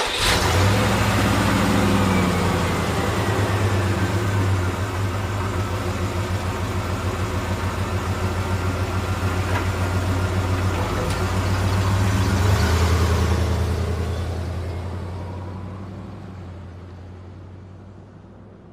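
A motor vehicle engine running steadily with a low, rhythmic hum, then fading away over the last several seconds.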